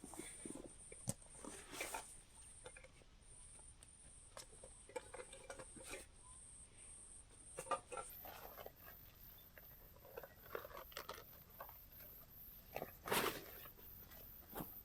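Faint scattered rustling and light knocks, like things being handled or moved, with a louder rustle near the end, over a steady high-pitched hum that steps up in pitch about halfway through.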